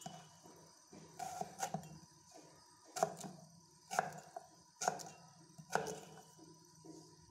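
Kitchen knife chopping raw mango into chunks on a wooden chopping board: about six sharp knocks of the blade through the fruit onto the board, roughly a second apart.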